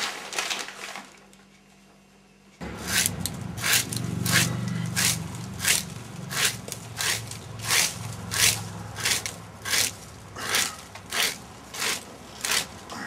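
Newspaper pages rustling briefly, then after a short near-quiet gap a garden rake scraping over grass in steady strokes, a little under two a second.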